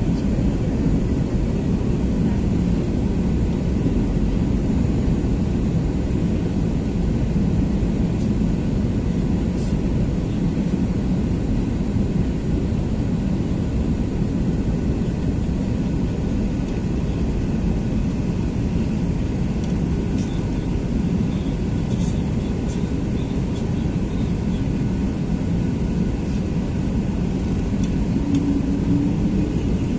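Steady low rumble of an airliner's cabin noise, engines and rushing airflow heard from inside the cabin, as the plane descends toward landing.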